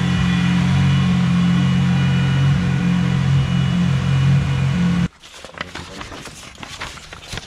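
Toyota 1JZ-GTE straight-six engine idling steadily. The sound cuts off abruptly about five seconds in, leaving faint light clicks and knocks.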